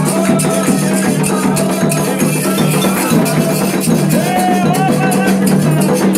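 Candomblé ritual music: hand percussion with a shaker or rattle keeping a fast, steady stroke, over a continuous low drum band, with voices singing wavering lines above it.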